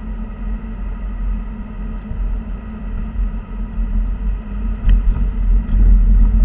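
Steady low rumble of a car driving, heard inside its cabin: tyre and road noise with the engine underneath. The rumble grows louder near the end, and a couple of faint clicks come about five seconds in.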